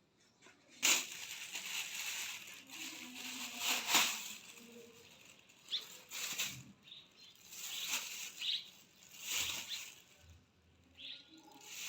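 Rustling swishes, five in all, each a second or so long and a couple of seconds apart.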